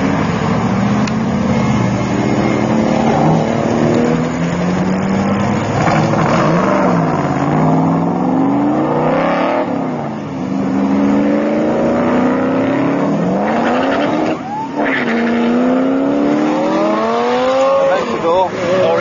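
Several sports car engines accelerating away one after another. Each revs up and drops back as it shifts gear, so the pitch climbs and falls again and again.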